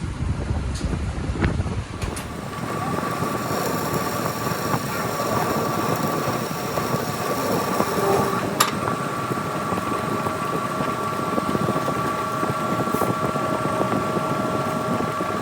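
Metal lathe running steadily, with a constant whine; a sharp click about eight and a half seconds in, after which the pitch of the whine changes.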